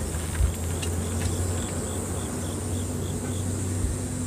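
Insects buzzing steadily and high, with a regular chirp about three times a second, over a low steady hum; a soft thump about half a second in.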